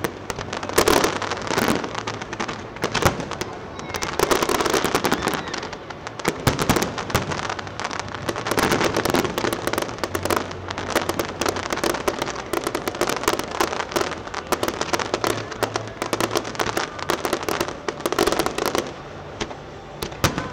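Fireworks display: a rapid, continuous barrage of aerial shell bursts, bangs and crackling, thinning to a few separate bangs near the end.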